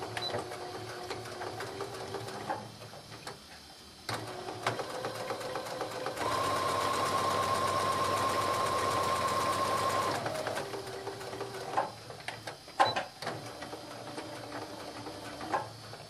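Sewing machine stitching a straight seam, running in several spells that stop and start. It runs loudest for about four seconds in the middle, with a steady high whine.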